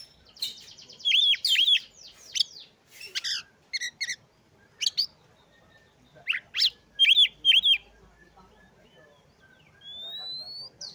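Oriental magpie-robin (kacer) singing a varied song of short whistles, repeated chirps and harsh rasping notes, in separate phrases with short pauses between them. A single rising whistle comes near the end.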